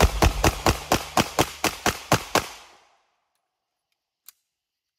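Springfield Armory Echelon 9mm striker-fired pistol fired in a rapid string of about a dozen shots, roughly five a second, stopping about two and a half seconds in.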